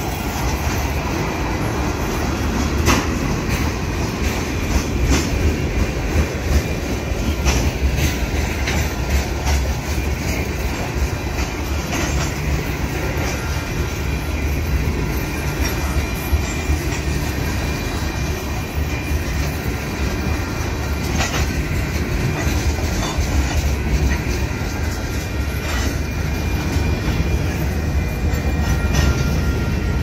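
Freight cars (tank cars, then covered hoppers) rolling past at trackside: a steady low rumble with irregular clicks and clacks as the wheels pass over the rail joints.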